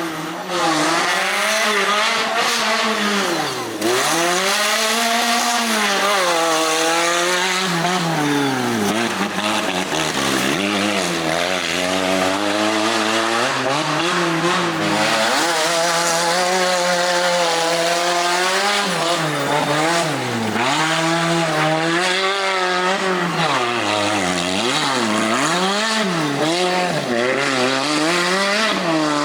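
Off-road 4x4 engine revving hard again and again, its pitch rising and falling every second or two.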